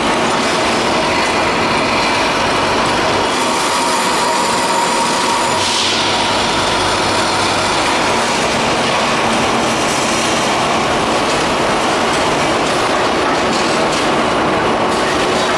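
Automatic pouch packaging line running: conveyor belts and packing machinery give a steady, dense mechanical rattle with a constant hum under it.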